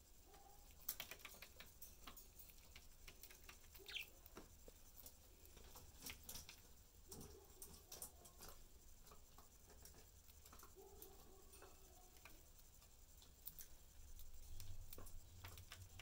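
Faint, irregular tapping and clicking of budgies pecking seed off a cardboard cage floor, with a single brief chirp about four seconds in.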